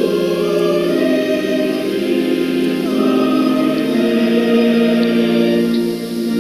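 Church choir singing with long held notes that change pitch every second or so.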